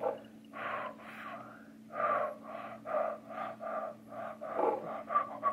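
A toddler blowing on freshly painted fingernails to dry the polish, in short breathy puffs about two a second.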